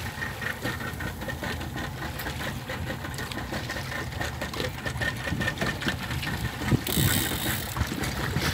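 Small fishing boat's outboard motor idling with a steady low rumble and a fast ticking over it; a gust of wind hits the microphone near the end.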